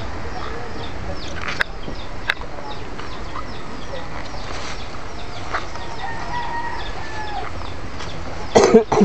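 Chickens calling: many short, high chirps repeating over a steady hiss, with a few longer held calls in the middle and a louder call near the end.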